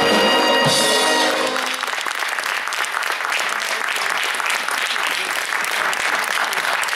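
A youth wind band holds its final chord, which cuts off about two seconds in, and audience applause follows steadily.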